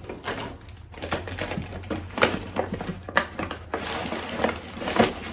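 Gift packaging being handled and unwrapped: crinkling and rustling with many sharp clicks and taps, growing into a denser rustle near the end.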